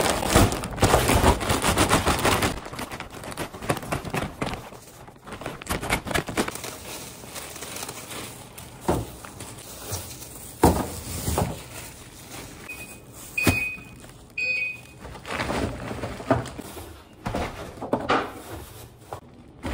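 Plastic bags crinkling and rustling as diced meat is handled and bagged, loudest in the first couple of seconds, with scattered knocks of the bags and meat on a steel counter. Two short high beeps sound about two-thirds of the way through.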